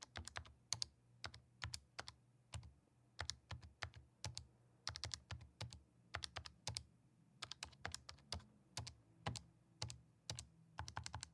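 Calculator buttons being pressed to key in calculations: sharp plastic clicks in irregular quick runs, several a second, with short pauses between runs.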